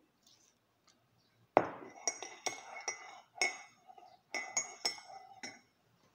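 Metal teaspoon stirring coffee in a ceramic mug: one sharp knock about one and a half seconds in, then about ten quick ringing clinks of the spoon against the mug.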